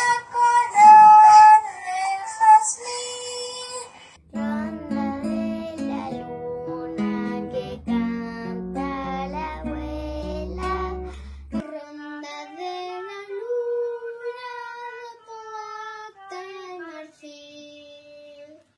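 Children singing solo in turn. From about four seconds in the voice has low instrumental backing, which stops suddenly at about twelve seconds; after that a lone child's voice sings unaccompanied, holding long notes.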